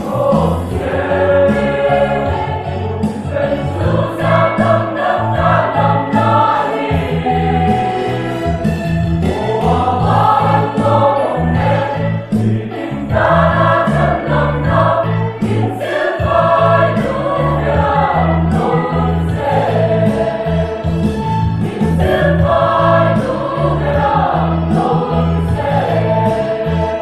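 Mixed church choir singing a hymn in Mizo, in phrases of a few seconds, over low sustained keyboard chords played through a loudspeaker.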